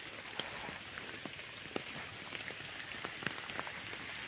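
Light rain falling in a forest: a steady hiss with scattered individual drops ticking sharply close by.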